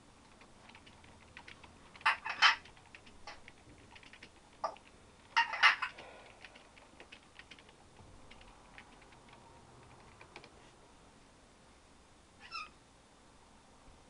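African grey parrot vocalizing and clicking: a run of light clicks throughout, loud short calls in two clusters about two and five and a half seconds in, and a brief chirp near the end.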